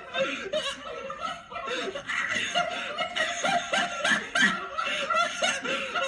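Teenage boys stifling laughter, with short bursts of snickering and chuckling through closed lips.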